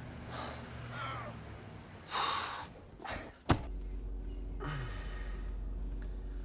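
A car door slams shut about halfway through. After it comes a steady low hum, as of a car's engine heard from inside the cabin. Before the slam there is a short, sharp, rushing breath, and just after it a brief low falling moan.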